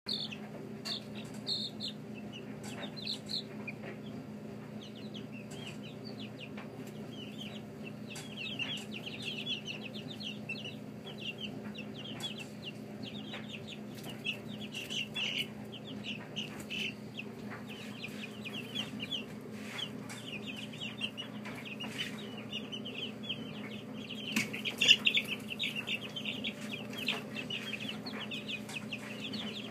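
A brood of young chicks peeping: many short, high, falling cheeps overlapping almost without a break, busiest about 25 seconds in. Underneath runs a steady low hum, with scattered light ticks.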